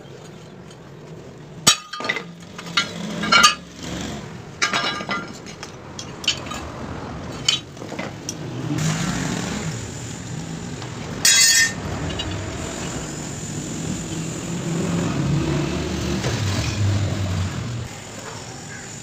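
Metal clinking and clanking, about a dozen sharp knocks over the first several seconds, then a steady machine-like running noise with a short loud burst partway through.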